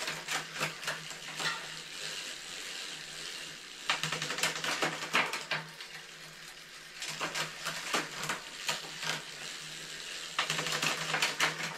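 Road bike drivetrain turned by hand: the chain runs over a new 52-tooth narrow-wide single chainring and an 11–32 cassette while the rear derailleur shifts up and down the gears. There are four bursts of rapid clicking and rattling. This is a test of the 1x conversion's chain line, in which the chain should stay on.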